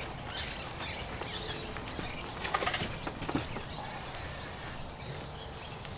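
Knocks and clatter from a portable air compressor, not running, being carried and set down, with a few bird chirps near the start.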